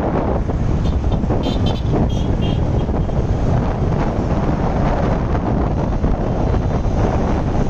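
Road traffic with wind buffeting the microphone, and short vehicle horn toots about one and a half to two and a half seconds in.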